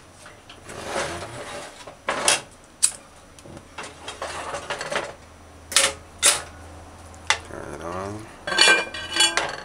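A metal spoon clinking and knocking against a metal cooking pot while seasoning is added and a curry is stirred, with a scrape rising in pitch and a burst of ringing clatters near the end.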